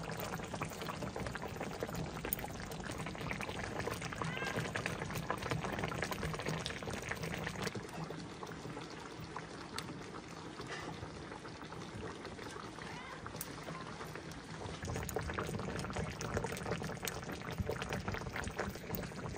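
A continuous liquid sound full of small crackles and clicks.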